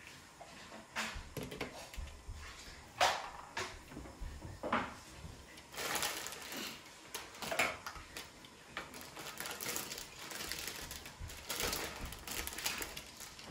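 Plastic Lego pieces being handled and pressed together: irregular small clicks and rattles, with a few sharper snaps.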